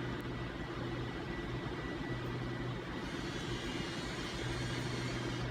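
Steady mechanical hum with a low drone and an even hiss, constant throughout.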